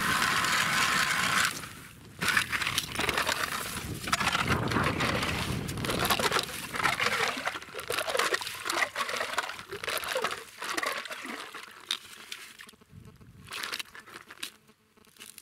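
Hand ice auger being worked down into an ice hole, its blades crunching and scraping through ice chips and slush in irregular bursts that thin out near the end.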